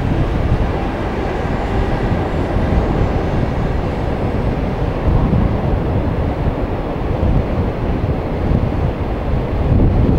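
JR Freight container train passing: a blue electric locomotive followed by a string of container wagons rolling by on the rails, a steady, loud noise of wheels on track that is strongest low down.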